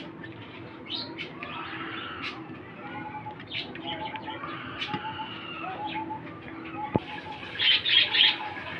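Birds chirping and cooing in the background, with a run of loud high chirps near the end. Beneath them is the faint swish and clink of a wire whisk beating egg-and-milk batter in a bowl.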